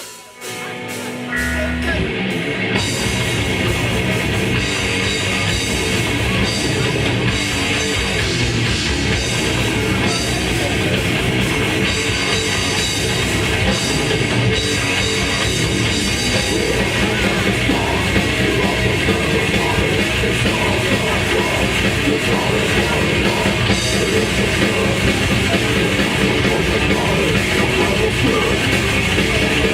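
Death metal band playing live, with distorted electric guitars and a drum kit. The song starts about a second in with a short low note, and the full band comes in loud at about two and a half seconds.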